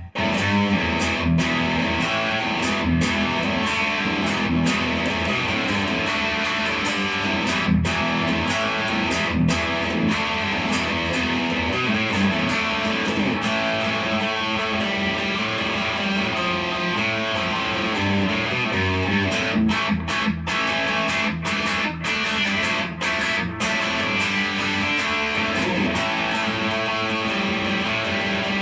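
Les Paul Special electric guitar played amplified: a continuous run of strummed chords and picked notes at a steady level.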